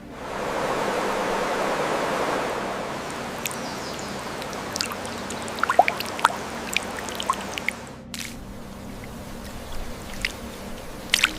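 Flowing stream water, a rushing wash loudest in the first few seconds, with many short, sharp high blips scattered over it. The sound cuts out briefly about eight seconds in and then picks up again, quieter.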